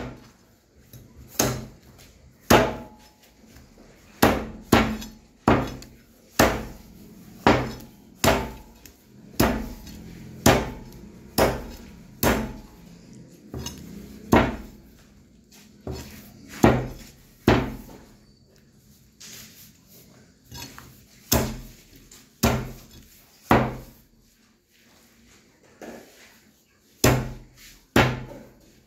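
Meat cleaver chopping a country chicken into pieces on a wooden log chopping block: sharp, separate chops at an uneven pace of about one a second, with short pauses between runs.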